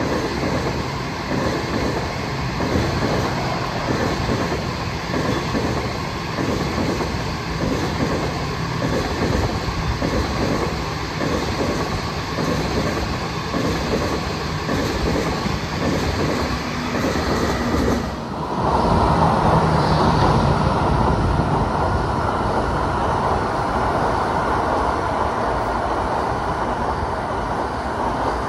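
Chinese high-speed train running, its wheels beating out a regular rhythm; about 18 seconds in the sound cuts suddenly to a louder, steady rush of train noise.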